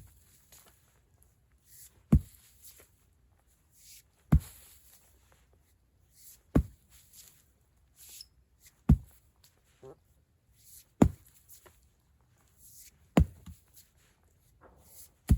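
Fiskars sledgehammer striking the earth with a sharp thud about every two seconds, seven even strikes in a steady rhythm.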